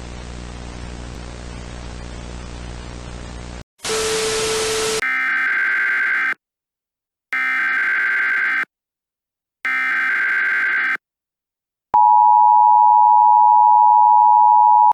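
Emergency Alert System broadcast tones: static with a low hum, a short louder burst of hiss, then three identical screeching SAME header data bursts about a second apart, followed by the steady two-tone EAS attention signal starting about 12 seconds in.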